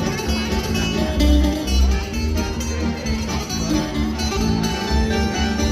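Music led by plucked string instruments over a steady bass beat.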